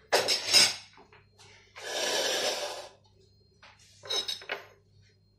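Kitchen handling noises: a sharp clatter just after the start, a longer rustle around two seconds in, and a few short knocks around four seconds in.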